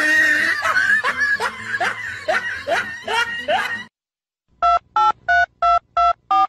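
Loud laughing in repeated rising bursts, cut off about four seconds in. Half a second later come about six short telephone keypad (DTMF) tones, about three a second, each a different two-tone key beep, timed to a thumb pressing a pet's paw pads like phone buttons.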